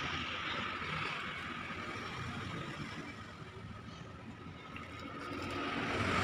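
Steady background rumble and hiss with a faint steady high whine, dipping a little in the middle and swelling again near the end; no distinct clinks or knocks of tools.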